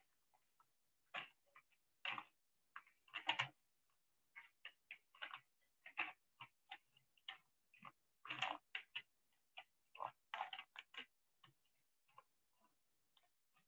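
Typing on a computer keyboard: irregular light key clicks, some in quick runs and others spaced apart.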